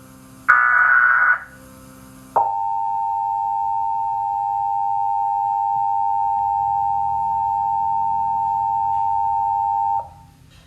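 Emergency Alert System alarm: a last burst of SAME header data tones lasting about a second, then, a second later, the EAS two-tone attention signal (853 and 960 Hz together) sounding steadily for about seven and a half seconds and cutting off sharply.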